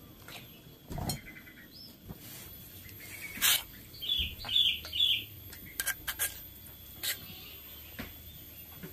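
A metal spoon scrapes and clinks against a stone mortar and a plate as sambal is scooped out. There are several sharp clicks, the loudest about three and a half seconds in. Midway a bird chirps three times in quick succession.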